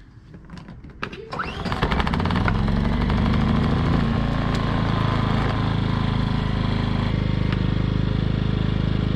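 Ryobi inverter generator's small engine being pull-started on full choke: a short rising whir of the recoil pull, then it catches about a second and a half in and runs steadily. It now starts because the adjusted choke linkage closes the choke butterfly all the way.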